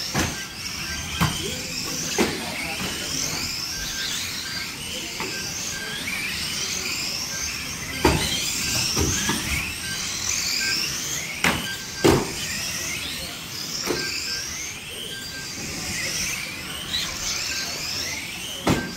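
Electric motors of several radio-controlled saloon stock cars whining, the pitch rising again and again as they accelerate around the oval. About seven sharp knocks of cars hitting each other and the track barriers break in through the race.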